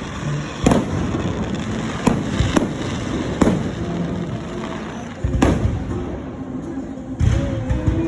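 Fireworks display: about six sharp bangs at irregular intervals, each followed by a rumbling echo.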